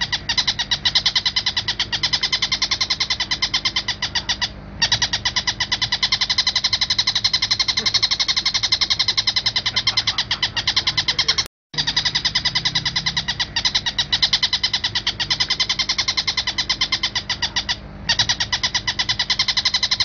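Oriental dollarbird (tengkek buto) calling: a fast, unbroken run of harsh chattering notes, broken by short pauses about 4.5 s in and near the end, and a brief full silence about 11.5 s in where the recording starts over.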